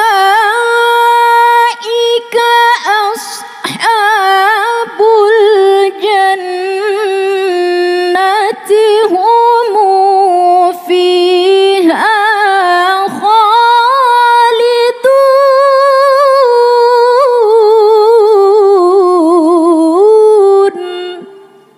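A woman reciting the Qur'an in the melodic tilawah style: one long, loud phrase of held notes with rapid ornamental wavers and turns in pitch, broken only by brief catches, ending about a second before the end.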